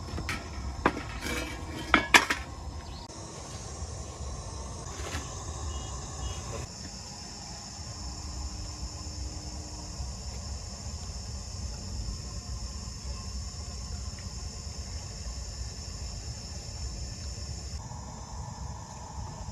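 A few sharp clinks of metal kitchenware in the first two seconds, then insects trilling steadily in a high band until shortly before the end, over a low, even outdoor hum.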